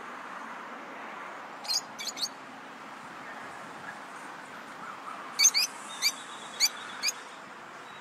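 Lovebirds calling in short, high-pitched chirps: three in quick succession about two seconds in, then a run of about six sharp chirps between five and seven seconds, over a steady background hiss.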